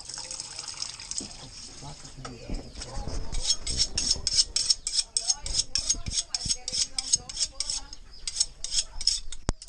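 A kitchen knife being sharpened, its steel blade drawn quickly against another blade in short rasping strokes, about four a second, starting about three seconds in. Before the strokes begin, water runs from the sink tap.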